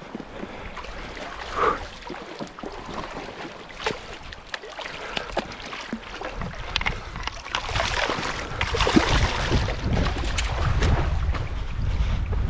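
Shallow creek water splashing and sloshing as a hooked steelhead thrashes close in during the fight. The sharp splashes thicken and grow louder from about six seconds in, over a low rumble of wind on the microphone.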